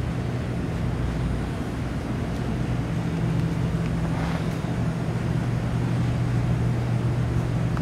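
Steady low hum over a constant hiss, unchanging throughout.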